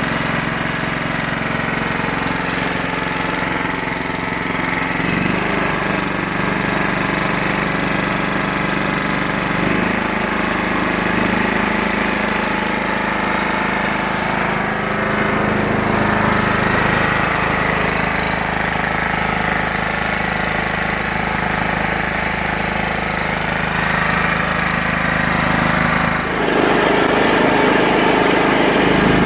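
John Deere LT155 lawn tractor's Kohler Command single-cylinder engine running steadily, freshly revived after three years unused. Its engine speed shifts a couple of times, and near the end the note changes abruptly as the tractor is driven off.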